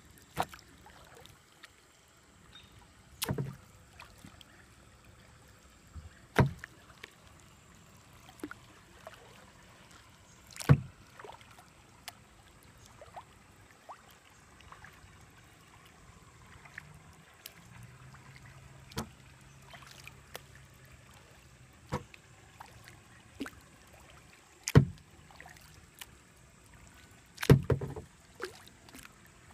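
Kayak being paddled on calm water: a short sharp knock or splash from the paddle every few seconds, about eight in all, over a quiet background.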